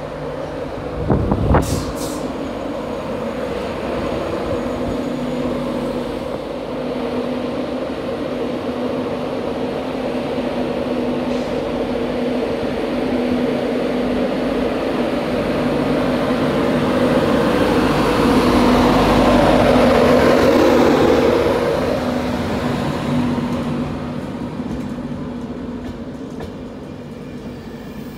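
A Class 91 electric locomotive hauling Mark 4 coaches runs into the platform with a steady electric hum, while the wheel and rail rumble swells as the locomotive and coaches roll past and then eases off near the end. There are a couple of sharp knocks about a second and a half in.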